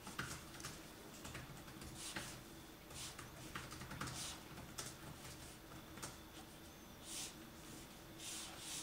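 Felt-tip pen drawing on paper: a faint series of short scratchy strokes as lines are drawn, with small clicks of the pen tip meeting the paper.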